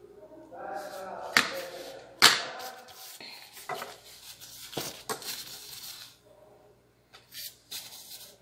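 Thin plastic disposable gloves being pulled onto the hands, crinkling, with several sharp snaps of the plastic in the first five seconds and a few lighter clicks near the end.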